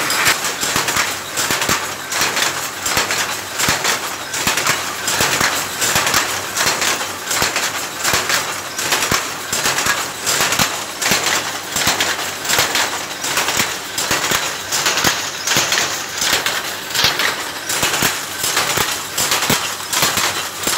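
Power loom running at speed, a steady rhythmic clatter of sharp clacks from the shuttle and beating mechanism with each pick.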